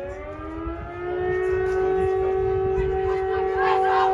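Outdoor civil defense siren winding up, its pitch rising and then holding a steady wail from about a second in. Voices join over it near the end.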